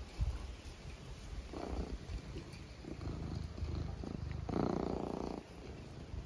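Domestic cat purring close to the microphone, in two stretches about a second and a half and four and a half seconds in, while it rubs its fur against the phone.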